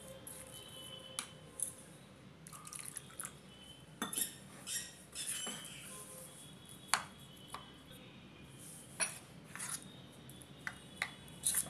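Metal spoon stirring thick semolina and yogurt batter in a bowl, with irregular clinks and scrapes as it knocks against the bowl's sides.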